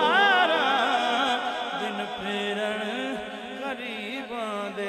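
A man sings a naat into a microphone without words, drawing out a long wavering note that rises and falls and then trails off more quietly. A steady low tone holds underneath.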